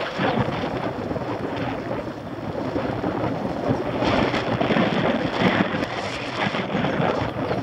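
Wind buffeting the microphone of a camera mounted on a moving mountain bike: a steady, gusty rushing rumble that grows louder about four seconds in.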